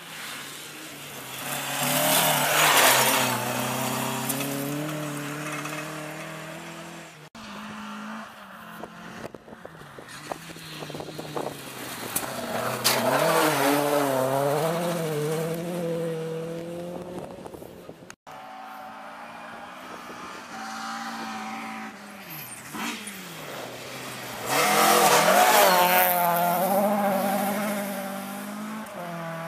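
Rally cars passing at speed, engines revving and rising and falling in pitch; three separate passes, each cut off suddenly.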